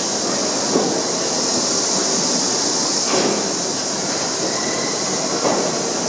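R68A subway train departing a station and running past close by: a steady rush of wheels on rail with a strong hiss, and a few sharp clicks as the wheels cross rail joints.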